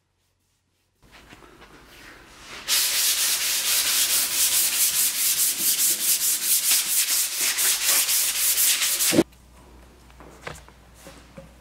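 Bristle paintbrush scrubbing oil finish onto a painted drawer in rapid back-and-forth strokes, several a second, ending with a sharp knock.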